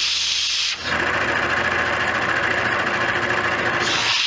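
Metal lathe running through a cutting pass on a bushing, a steady mechanical noise whose tone shifts about a second in and again near the end.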